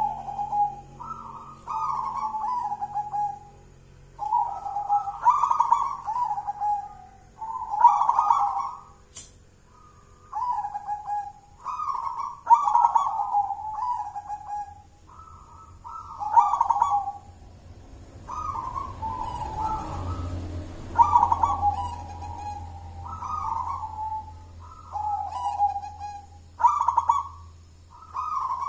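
Local Javanese zebra dove (perkutut) singing its cooing song: short phrases of quick, stepped coos, repeated every second or two with brief gaps.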